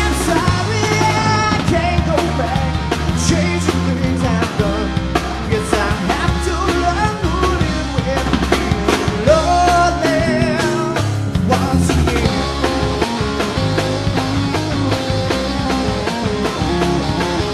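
Rock music with singing, drums and guitar.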